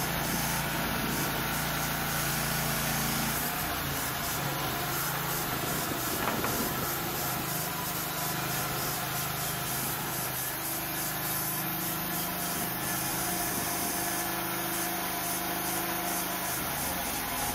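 Band sawmill running: its engine holds a steady note that shifts slightly about three and a half seconds in, over a steady high hiss.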